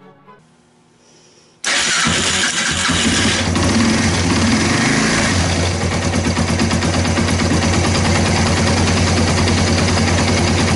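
Yamaha TW225's air-cooled single-cylinder engine starting on its electric starter, powered by the freshly fitted lithium battery. It catches suddenly about two seconds in and then runs steadily.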